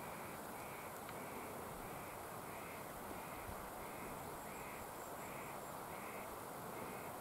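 A faint call repeated at an even pace, about every two-thirds of a second, each one short and high, over a steady outdoor hiss.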